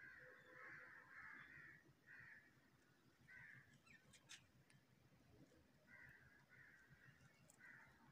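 Faint, harsh bird calls repeated in short runs, with a pause in the middle and a couple of light clicks about four seconds in.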